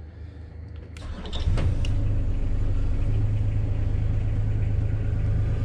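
Yanmar marine diesel engine started after five seconds of glow-plug preheat: a click about a second in, the engine turns over and catches about a second and a half in, then runs steadily at idle.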